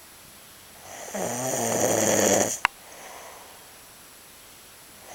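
Loud snoring: one rough, rattling in-breath with a low buzz, starting about a second in and lasting about a second and a half. It ends in a sharp click and is followed by a softer breath out.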